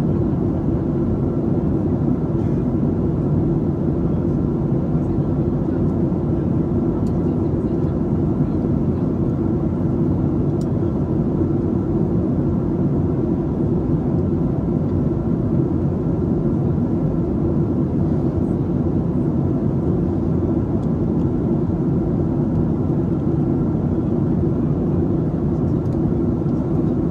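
Boeing 737-700 cabin noise during the approach: a steady low rumble of the CFM56-7B turbofan engines and airflow past the fuselage, with a faint steady whine above it.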